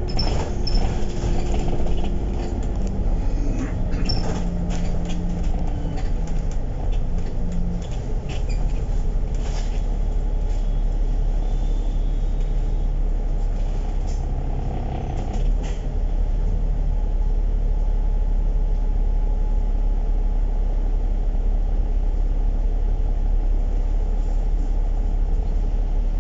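Inside a moving KMB route bus: steady low engine and road rumble, with scattered rattles and knocks from the bodywork through the first sixteen seconds or so. About fifteen seconds in the sound dips briefly, then runs on steady and a little louder.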